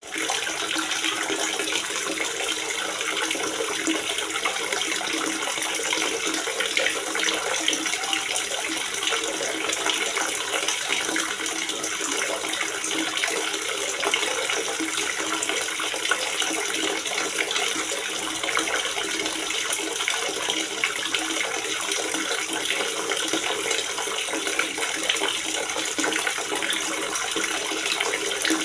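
Water gurgling and splashing steadily as it pours into a water reservoir, a dense trickling and bubbling with little low rumble.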